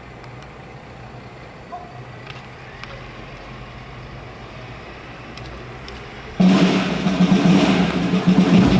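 A quiet open-air lull for about six seconds, then a military marching band of brass and drums strikes up all at once and plays loudly.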